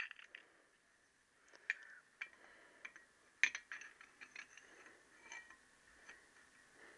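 Faint metallic clicks and clinks of a steel drift and sludge tube sliding into the bore of a Triumph T120R crankshaft, with a few sharper clicks, the loudest about three and a half seconds in.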